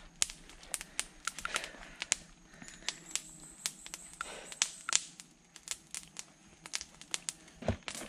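Crinkling and rustling of stiff material being handled, with many irregular sharp clicks and crackles.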